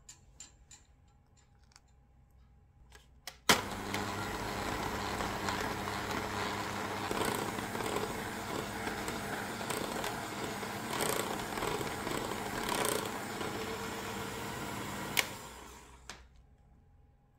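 Electric hand mixer beating butter and powdered sugar into buttercream in a glass bowl: a few light clicks, then it switches on with a sharp click a few seconds in and runs steadily for about twelve seconds, then clicks off and spins down.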